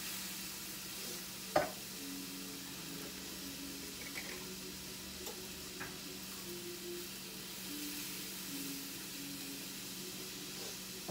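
Chicken broth and evaporated milk sizzling in a nonstick frying pan over a gas burner, a steady hiss. One sharp knock about a second and a half in, with a few lighter ticks later, under a steady low hum.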